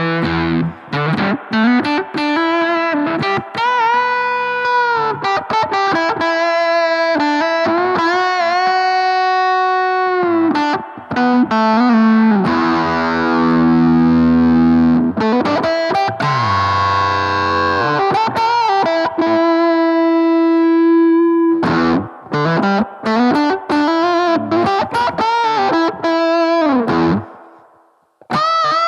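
Electric guitar played through a BOSS GT-1000 amp model into a Two Notes Cab M cabinet simulator: a solo line of single notes with string bends and slides, several long held notes in the middle. The playing stops about two seconds before the end, then one short note sounds.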